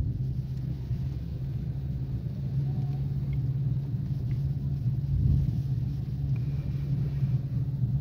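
Low, steady road rumble inside the cabin of a car being towed behind a tow truck with its own engine off. The tyres and the tow truck ahead make a drone that swells briefly about five seconds in.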